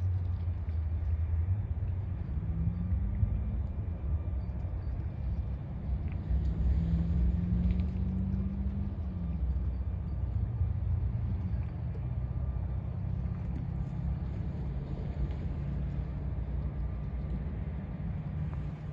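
A continuous low rumble with an engine drone that rises and falls in pitch twice.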